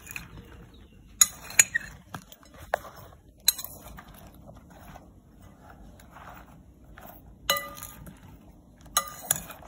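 Cut eggplant chunks being tossed by hand in a glass bowl: irregular sharp clinks against the glass a second or more apart, with soft rustling of the pieces between them.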